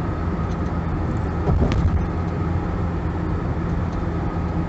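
Steady engine and road noise inside a moving car's cabin, a constant low hum. A short tick about a second and a half in.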